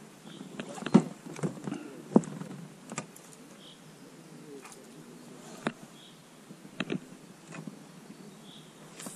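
Irregular knocks and clicks of fishing gear handled in an inflatable boat, the loudest about a second in and just after two seconds, with a bird giving short high chirps every couple of seconds.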